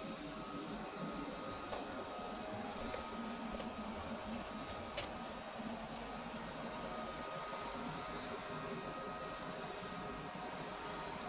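Vorwerk VR100 (Neato XV11) robot vacuum running a cleaning pass: a steady motor and brush hum with a high, even whine. Two sharp clicks come about three and a half and five seconds in.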